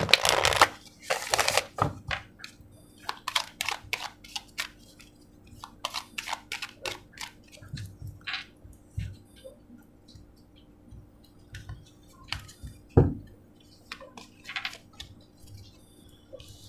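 A deck of oracle cards shuffled by hand: two quick riffles at the start, then a long run of separate soft card clicks and flicks, with one louder thump about thirteen seconds in.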